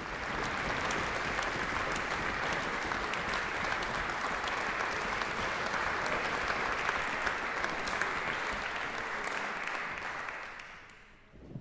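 Audience applauding: steady, dense clapping that thins out and fades away near the end.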